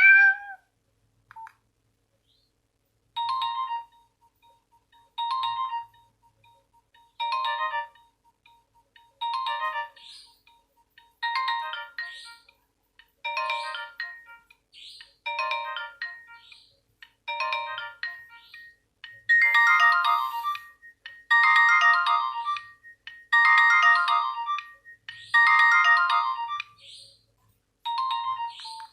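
Nokia 105 ringtone: a short electronic melody phrase repeating about every two seconds, turning louder and fuller about two-thirds of the way through.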